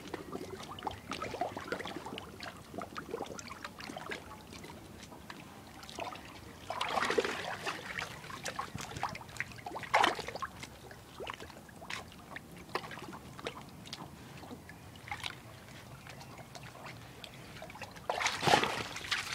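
Two dogs splashing and sloshing the water of a paddling pool as they fish for stones, with trickling and dripping throughout. Louder splashes come about 7 and 10 seconds in and again near the end.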